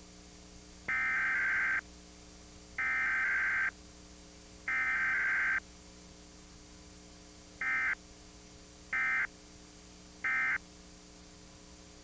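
Emergency Alert System SAME digital data bursts, a harsh two-tone buzz. Three header bursts of about a second each, a second apart, start about a second in. Three short end-of-message bursts follow, about a second and a half apart, over a steady low hum.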